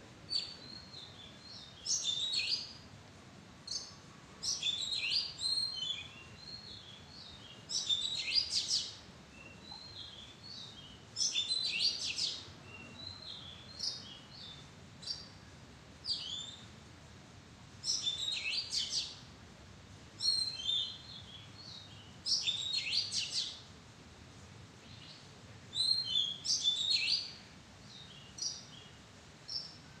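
Oriental magpie-robin singing: short, varied whistled phrases, each about a second long, repeated every few seconds.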